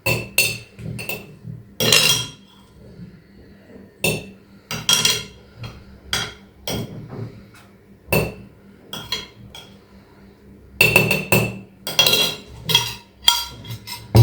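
Irregular sharp knocks and clinks with a short ring, about twenty of them and bunched more closely in the last three seconds: a utensil knocking against a jar as lemon slices and grated ginger and turmeric are tipped and pressed into it.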